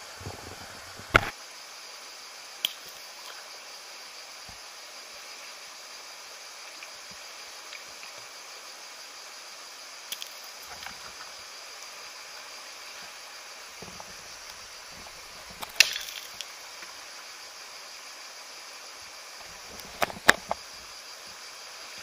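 Shallow river running over stones, a steady rushing hiss, broken by a few short sharp clicks, the loudest about 16 and 20 seconds in.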